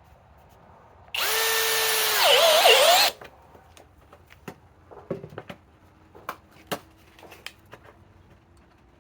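Cordless compact hammer drill driving a #14 by 3/4-inch sheet metal screw into metal: the motor runs at a steady whine for about a second, then gets louder as its pitch drops and wavers under load while the screw bites and threads in, and it stops after about two seconds. A few light clicks and knocks follow.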